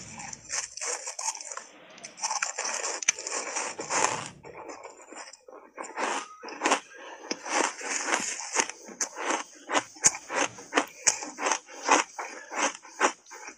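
Mouth chewing and crunching refrozen ice coated in matcha powder: a run of crisp, sharp crunches, sparser at first and coming about twice a second in the second half.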